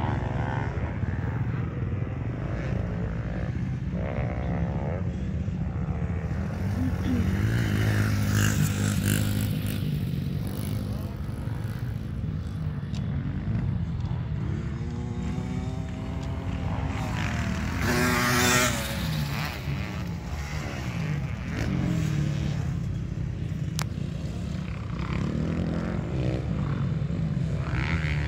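Dirt bike engines revving up and down over a steady low rumble, the pitch rising and falling several times. One bike is loudest and nearest about two-thirds of the way through.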